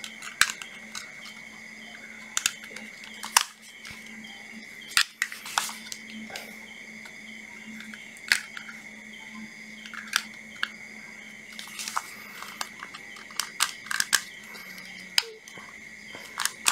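Sharp plastic clicks and knocks from a cordless drill body being handled and a test lead with an alligator clip being fitted to it, scattered irregularly, over a steady faint hum.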